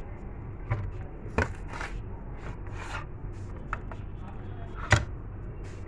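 Handling noise from a desktop motherboard being moved and turned to show its rear port panel: a few sharp knocks and clacks, the loudest about five seconds in, with light rustling and scraping between them.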